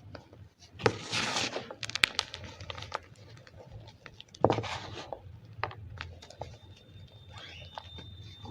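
Gym chalk mixed with cornstarch being crushed, making squeaky, crunchy crumbling sounds. There are two louder crunches, about a second in and about four and a half seconds in, with small crackles and clicks between them.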